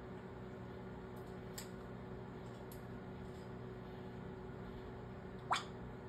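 An African grey parrot gives one brief, sharp chirp that sweeps quickly upward in pitch about five and a half seconds in. Before it come a few faint clicks over a steady low hum.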